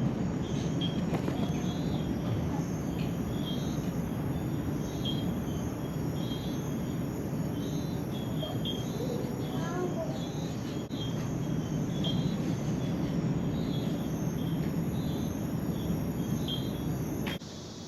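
Crickets chirping at night: short high chirps repeating over and over above a steady low rush of background noise. It all cuts off suddenly near the end.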